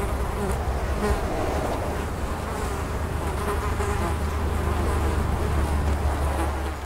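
Flies buzzing in a thick swarm, over a steady low hum.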